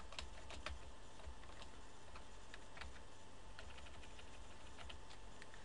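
Computer keyboard typing: scattered, irregular key clicks as single letters are entered, over a low steady hum.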